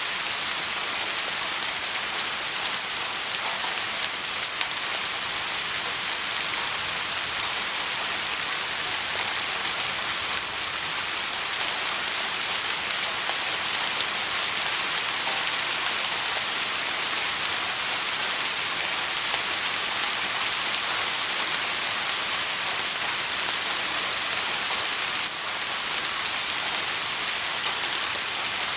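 Steady soft rain: an even hiss of rain falling on a surface, with no thunder.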